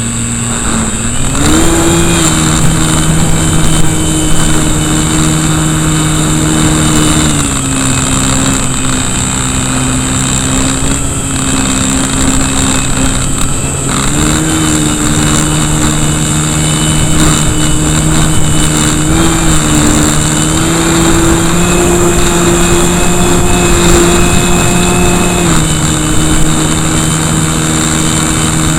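Brushless electric motor (KV1100, 3S) and propeller of an RC Cessna, heard from right beside the motor, whining at a pitch that follows the throttle. It steps up about a second and a half in, drops back around seven seconds, rises again near fourteen seconds and once more around twenty, then eases down near twenty-six seconds. Wind noise rushes over the microphone underneath.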